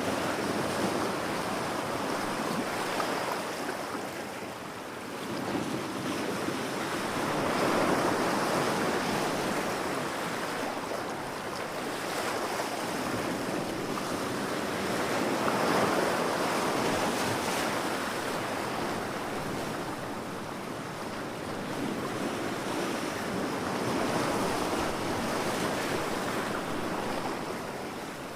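Ocean waves breaking on a beach: a continuous surf wash that swells and ebbs in slow surges, a wave cresting about every eight seconds.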